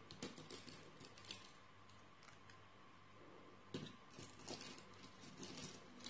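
Thick slime being stirred with a silicone spatula in a plastic bowl: faint, sticky crackling and squishing clicks, in one cluster at the start and another from a little under four seconds in.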